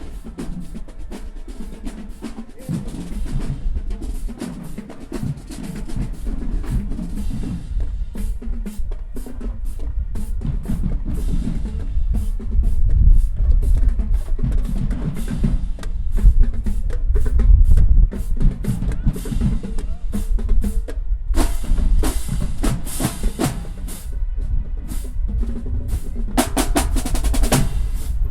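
Marching band drumline playing a cadence: rapid snare drum strokes and rolls over pounding bass drums, with brighter, sharper hits around 21 seconds in and again near the end.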